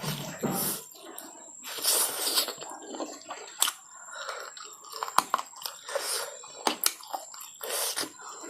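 Close-miked chewing and wet mouth sounds of a person eating fatty pork, with several sharp smacking clicks in the second half.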